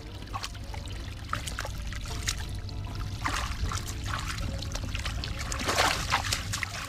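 Muddy water sloshing and trickling as hands scoop and splash in a waterlogged hole, with scattered small splashes and a louder splash about six seconds in.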